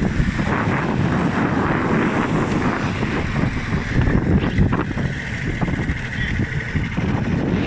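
Strong wind buffeting the microphone in a continuous low rumble, with scattered short knocks and rustles.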